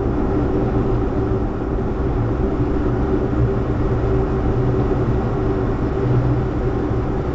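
Car driving at highway speed, heard from inside the cabin: steady tyre and road noise with a constant low engine drone.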